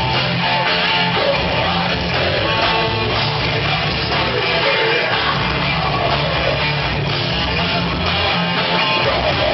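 Live rock band playing heavy music: electric guitar, bass guitar and drum kit at full, steady volume, with the singer's vocals over them.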